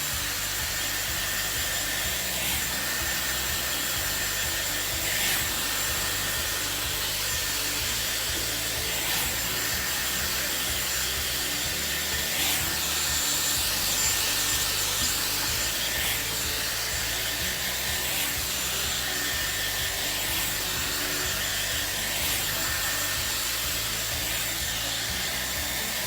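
Dyson Airwrap hair styler running steadily while drying hair: an even rush of blown air with a thin, steady high whine from its motor. Background music plays underneath.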